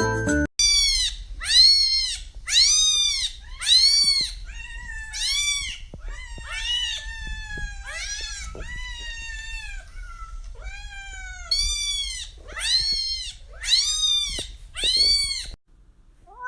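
A cat meowing over and over, about a dozen high-pitched meows roughly a second apart. Several in the middle are longer and fall in pitch.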